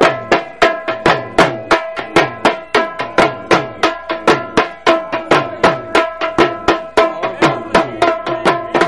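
Drum music: a drum beaten in a fast, steady rhythm of about four to five strokes a second, with a held note sounding underneath.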